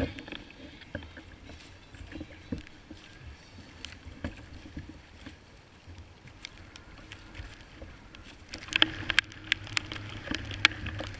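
Choppy sea sloshing and slapping against a Hobie Revolution 11 kayak hull, with scattered sharp knocks and clicks. The knocks grow busier and louder about three quarters of the way through.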